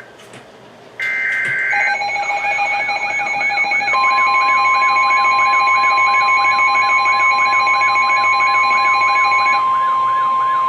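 Start of a NOAA Weather Radio alert. About a second in comes one short two-tone EAS SAME header data burst, a harsh buzz. Then a weather radio's warbling alarm sounds, about three warbles a second, joined around four seconds in by the steady 1050 Hz weather-radio warning tone.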